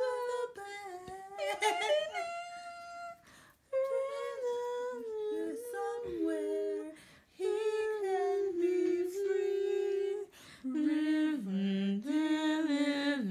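A woman singing a slow tune with no clear words, part hummed, holding long notes and moving between them in steps, with short breaks between phrases.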